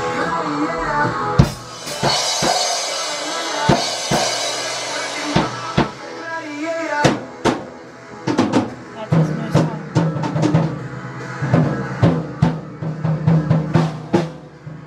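A drum kit being practised: bass drum, snare and cymbal strikes, spaced out at first and coming faster about halfway through, with recorded music playing along.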